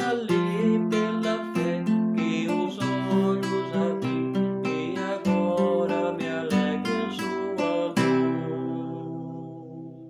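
Acoustic guitar strummed in a steady rhythm, ending on a final chord about eight seconds in that rings out and fades away.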